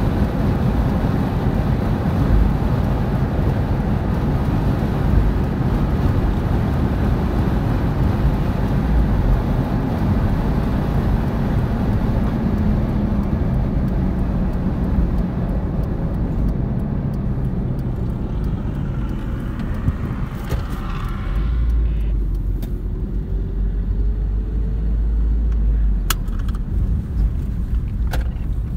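Road vehicle driving: steady engine and road rumble with tyre and wind hiss that fades about two-thirds through, leaving a deep low rumble, then a couple of sharp clicks near the end.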